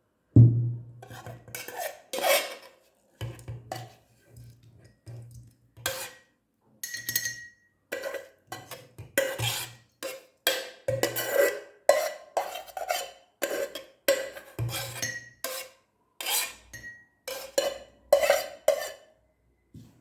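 Kitchen utensils clinking, knocking and scraping against a bottle as the remedy's ingredients are put into it, in irregular strokes, some with a short ringing tone; the loudest knock comes about half a second in.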